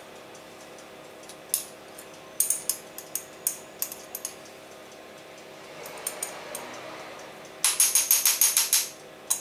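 Metal teaspoon clicking against a spice jar as curry powder is scooped out and tapped into a bowl, in scattered single clicks and then a fast run of rattling taps about three quarters of the way through. A faint steady hum runs underneath.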